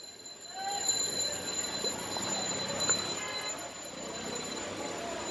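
Fish-market background: distant voices and a steady high-pitched tone, with a few light knocks as a large knife cuts through a catla fish on a wooden chopping block about two to three seconds in.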